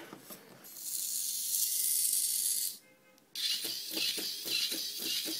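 Small gear motors of a Hexbug Spider-based walking robot under remote control: a high whir for about two seconds, then after a brief pause a rhythmic mechanical clicking, about three clicks a second, as the legs step.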